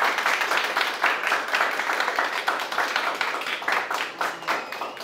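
A small audience clapping: a steady round of applause that thins out a little near the end.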